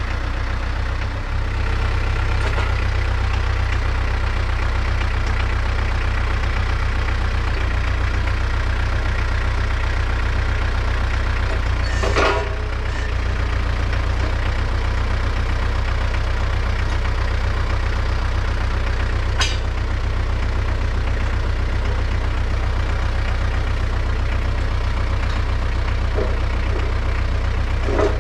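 Branson 3725H tractor's diesel engine running steadily. About twelve seconds in there is a sharp metal clank as the front loader picks up the pallet fork frame, and a lighter click later on.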